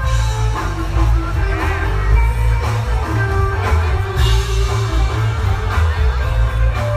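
A live rock band playing through a PA: a heavy, steady bass line under electric guitar and some singing.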